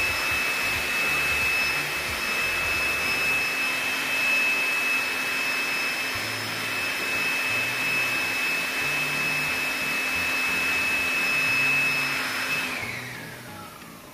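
High-speed electric motor with a fan running steadily with a high whine. About 13 seconds in it is switched off and winds down, its whine falling in pitch.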